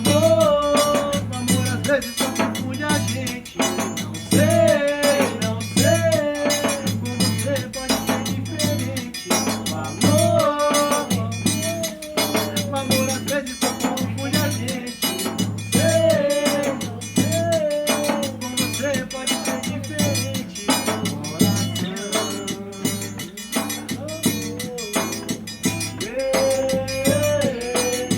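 Music: a song with a steady, repeating bass beat under a wavering melodic line.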